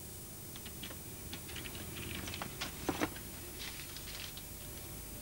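Small clicks and light rustling as a leather briefcase's catch is worked and a paper envelope is lifted out, with two sharper clicks close together about three seconds in.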